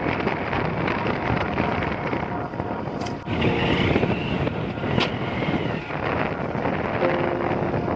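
Wind rushing over the microphone of a moving motorcycle, with engine and road noise beneath. About three seconds in, a brief wavering high tone rises over the rush.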